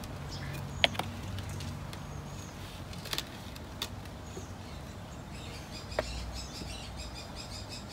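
Potting soil sliding and dropping from a tipped plastic tub into a tire planter, with a few sharp knocks and clicks. Birds chirp in the background in the second half.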